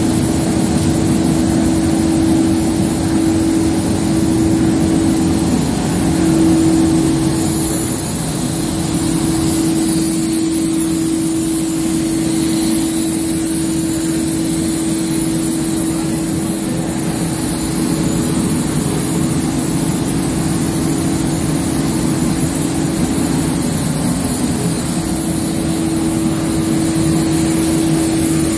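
Machinery of an automatic spray-painting line running steadily: a continuous hum with one strong steady tone and a faint high whine, the tone wavering briefly a few times.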